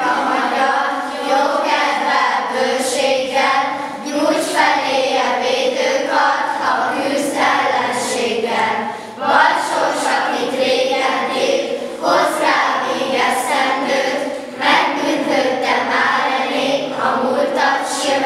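Children's choir singing together, in sung phrases that start abruptly at the outset.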